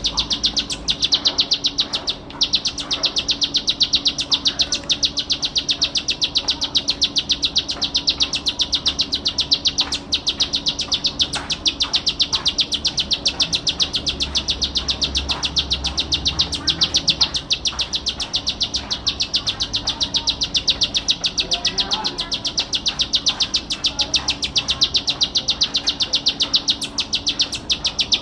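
Plain prinia (ciblek sawah) singing a long, unbroken, very fast trill of sharp high notes.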